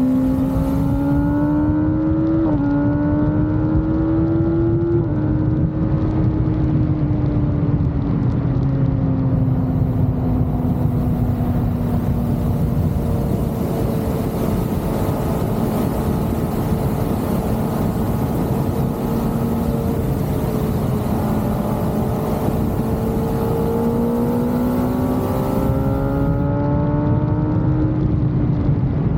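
Kawasaki ZX-6R's inline-four engine under way, pulling up through the gears with two upshifts in the first five seconds. It then eases off and cruises at lower, steady revs, and builds revs again near the end. Wind rush runs throughout.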